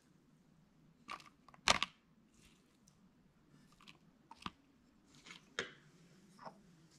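A few quiet, scattered crunches and clicks, the loudest just under two seconds in: ceviche being spooned onto a crisp tostada shell on a ceramic plate.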